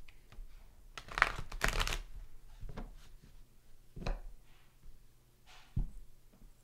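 A deck of oracle cards being shuffled by hand: a quick run of rustling about a second in, then a few short taps and slides of the cards.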